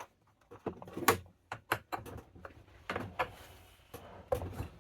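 Several light knocks and clicks of handling, spaced irregularly, as a chainsaw is refilled with bar oil.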